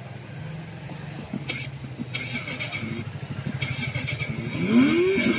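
An engine running steadily with a fast low throb, and a high-pitched squeal that comes and goes. Two short sounds whose pitch rises and then falls, about four and a half seconds in and at the very end, are the loudest.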